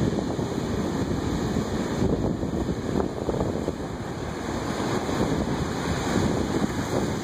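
Ocean surf breaking and washing over rocks at the shoreline: a continuous rushing noise that swells and eases a little as waves come in.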